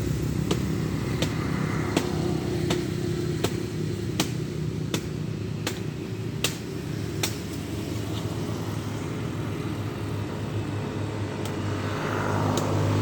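Heavy diesel truck engine labouring uphill, a steady low drone. For the first half it is punctuated by sharp regular ticks, about one every 0.7 s. Near the end the sound swells as another vehicle comes closer.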